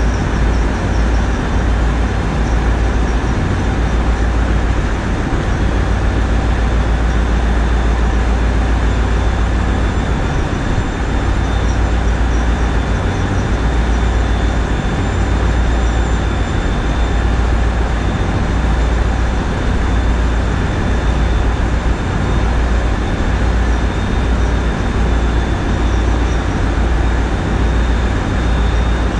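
A tugboat's diesel engines running steadily, a loud low rumble with a faint high whine above it.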